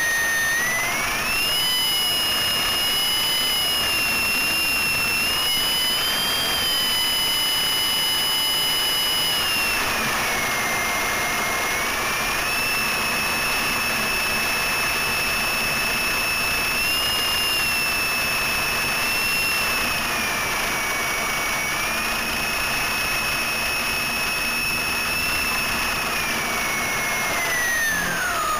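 Electric motor and propeller of a GWS Stearman RC biplane whining up close, the pitch stepping up and down with the throttle as the model moves on the ground. Near the end the whine falls steeply as the motor spins down.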